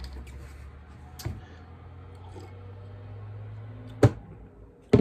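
Cutlery clicking against a plate while eating: a small click about a second in and a sharper, louder one near the end, over a low steady room hum.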